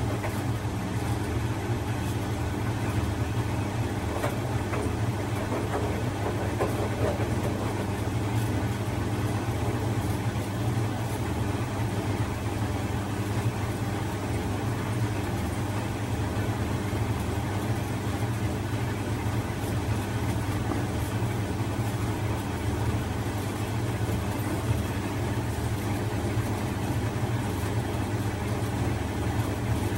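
Bosch front-loading washing machine running with a steady low hum while its drum turns slowly and never rises to spin speed: the machine fails to spin.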